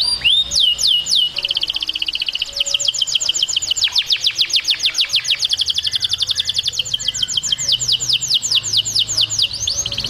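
Domestic canary singing. It opens with a few sweeping whistled notes and a short fast trill, then about a second and a half in breaks into a long run of rapid downward-sweeping notes, about seven a second, which ends just before the close.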